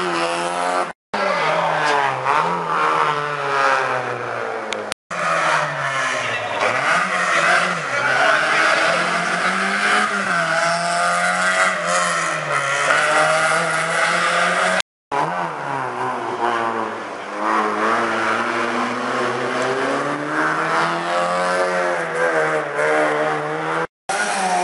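Rally car engines revving hard, the pitch repeatedly climbing and dropping as the cars accelerate and lift through tight turns, with some tyre squeal. The sound cuts out briefly four times.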